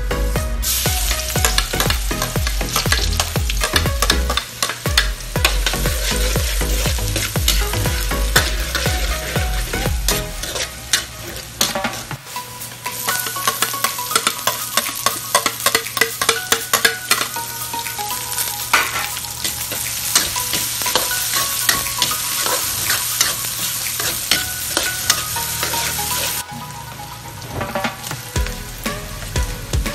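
Garlic and onion sizzling in hot oil in an aluminium wok, with a spatula clicking and scraping against the metal as they are stirred. Near the end the sizzle suddenly dies down as cold diced ham and hotdog are tipped in, and the scraping goes on.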